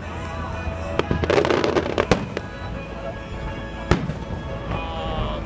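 Aerial firework shells bursting in a starmine barrage, with music playing throughout. There are sharp bangs about a second in, a cluster of crackling reports around a second and a half in, and single bangs near two and four seconds.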